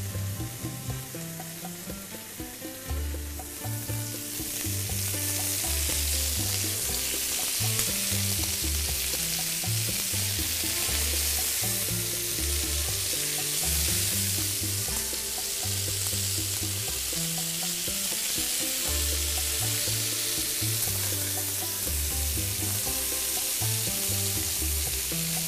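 Skewers of chicken, meat and green pepper sizzling steadily on a hot flat-top griddle, the sizzle swelling loud about four seconds in. A low bass line of background music runs underneath.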